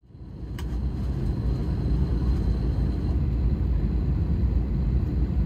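Steady low cabin rumble of an Airbus A321neo on the ground, heard from inside the cabin at a window seat, fading in from silence over the first second or two, with a light click about half a second in.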